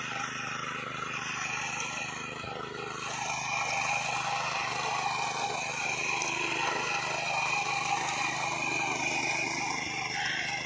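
An engine running steadily, a little louder from about three seconds in.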